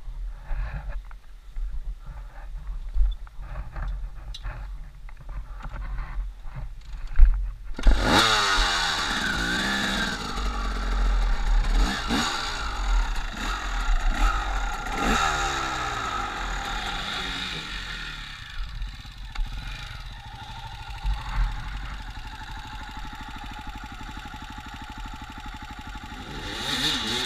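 Clatter and knocks, then about eight seconds in a KTM dirt bike's engine starts and is revved up and down several times as the bike rides off, settling to a steadier run.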